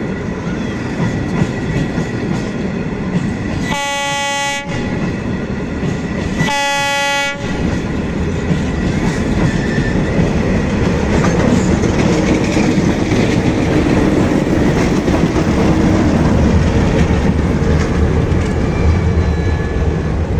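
Diesel-hauled train of empty flat wagons rolling past with a steady rumble and wheel clatter. The locomotive's horn sounds two short blasts, about four and seven seconds in. From about twelve seconds the diesel locomotive's engine grows louder as it draws level.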